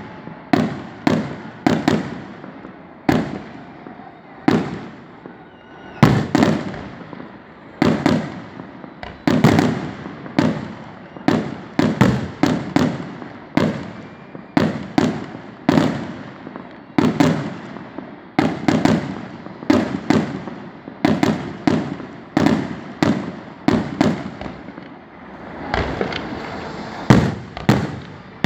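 Fireworks show: aerial shells bursting one after another, dozens of sharp bangs, each trailing off in a rumbling echo.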